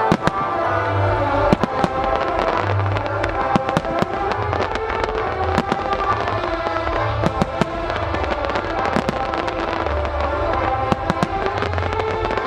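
Ruggieri aerial firework shells bursting in a rapid, irregular string of sharp cracks and pops, over music with a sustained melody.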